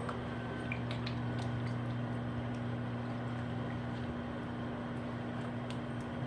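Wet, squishy stirring of cream of chicken soup and milk in a mixing bowl, with light clicks scattered through it. Under it runs a steady low hum, part of which drops out about four seconds in.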